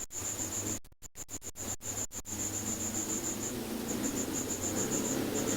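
Cricket chirping in a steady run of rapid high pulses, with the recording cutting out briefly several times in the first two seconds and a rushing noise that grows louder toward the end.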